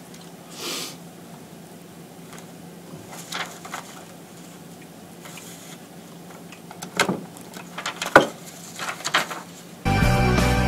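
A few sharp clicks and knocks from a heavy-duty lever paper punch being handled and pressed, the loudest two about seven and eight seconds in, over low room tone. Near the end, loud rock music with guitar starts abruptly.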